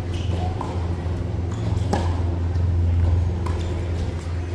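A tennis ball being hit and bouncing during a rally: a few sharp knocks roughly a second and a half apart, over a steady low hum.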